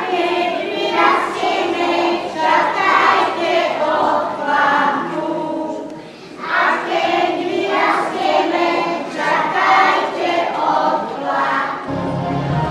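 A group of young children singing a song together in unison, in phrases with a short breath pause midway. Music comes in near the end.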